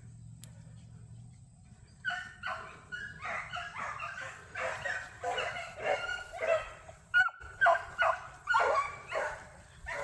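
Pack of beagle hounds baying, giving tongue in quick overlapping calls while running a rabbit's track. The baying starts about two seconds in and dies away near the end.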